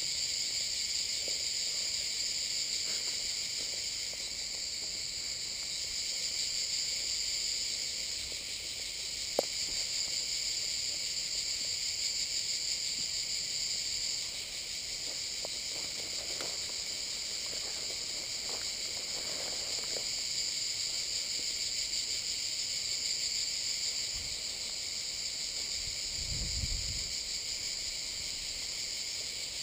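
Insects chirring steadily in a high, unbroken band. About nine seconds in there is a single sharp click, and there is occasional rustling of brush.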